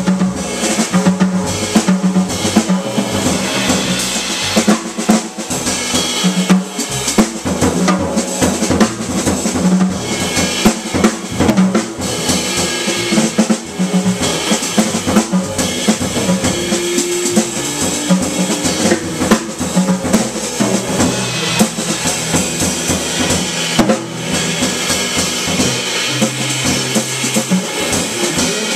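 Live jazz trio of electric guitar, six-string electric bass and drum kit playing, with the drums most prominent: busy snare, bass drum and cymbal hits over moving bass notes.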